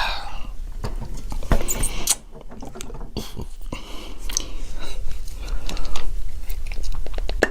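A person chewing and biting crunchy nacho tortilla chips close to the microphone: a dense run of crisp crunches and crackles, dipping briefly a couple of seconds in.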